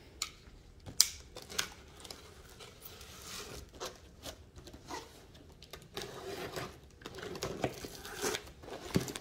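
Sealed cardboard box being cut and torn open by hand: scattered scrapes, tearing and crinkling of packing tape and cardboard, with sharp clicks about a second in and near the end.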